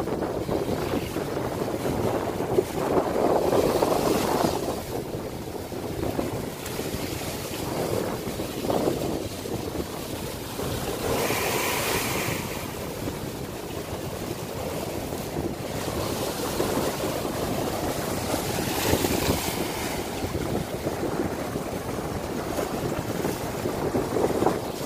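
Ocean waves breaking against a rocky reef shelf and surging up through a narrow cleft in the rock, a continuous rushing with three louder surges about eight seconds apart. Wind buffets the microphone.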